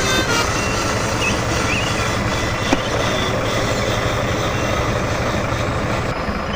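Radio-controlled dump truck running, a steady mechanical rumble and rattle, with a single click a little under three seconds in.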